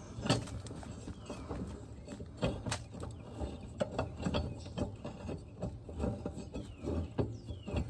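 Irregular clicks and knocks of a lawn mower blade and its mounting hardware being handled and fitted against the deck spindle, several a second and uneven.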